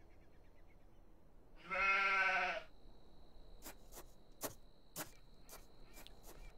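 A sheep bleats once, a single call just under a second long about two seconds in. After it a thin steady high tone holds on, with a string of sharp, irregular clicks.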